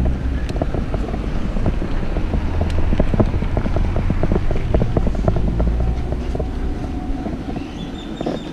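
Wind buffeting the microphone over the rattle and clicking of a mountain bike rolling across rough, stony ground and slowing to a stop. A brief high squeal comes near the end.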